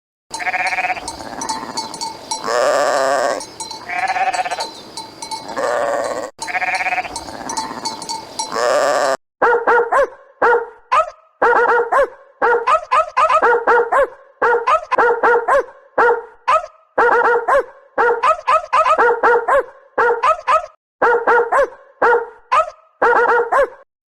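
Animal calls: for about the first nine seconds, a string of drawn-out bleats. Then a cut to rapid, short, pitched calls repeated in quick bursts.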